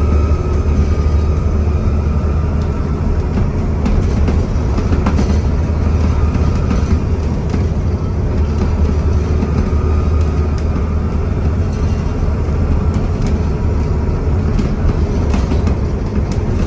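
Alexander Dennis Enviro400 double-decker bus under way, heard on board: a steady low engine drone with a faint turbocharger whistle that comes and goes. Light rattles and clicks are heard over it.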